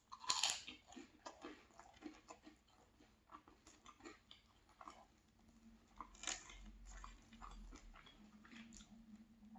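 Close-miked mouth sounds of eating a dense, chunky lemon pastry with a flaky, sfogliatelle-like crust. There is a crisp bite about half a second in, then quiet chewing with small crunches and wet mouth clicks.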